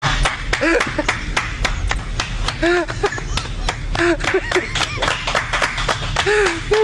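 Hands clapping in a steady run, about four claps a second, with short rising-and-falling voice notes sounding over the claps.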